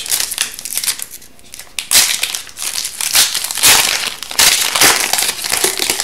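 Foil wrapper of an Upper Deck Series 2 hockey card pack being torn open and crumpled by hand. It crinkles in repeated bursts, louder from about two seconds in.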